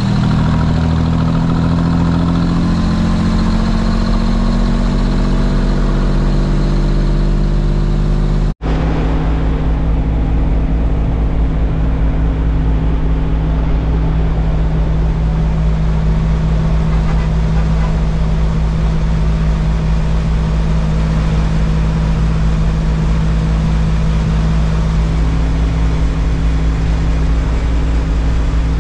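Brockway 260 truck's diesel engine heard from inside the cab while driving on the highway: a loud, steady drone mixed with road noise. Its pitch drifts for the first several seconds, the sound drops out for an instant about eight and a half seconds in, and after that the note holds steady at cruising speed.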